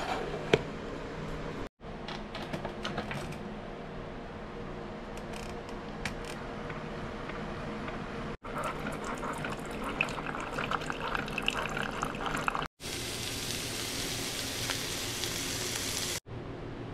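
Keurig 2.0 single-cup coffee maker running and brewing into a mug, a steady hum with running liquid and a few clicks. After a couple of cuts, vegetables sizzle loudly in a hot frying pan near the end.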